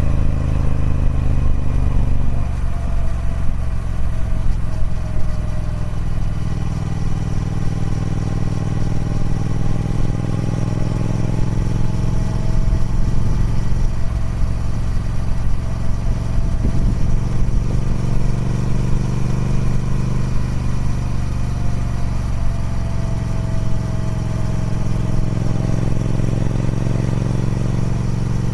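Triumph Speed Twin 1200's 1200 cc parallel-twin engine running through its stock exhaust at a fairly steady low engine speed, its pitch drifting gently down and up.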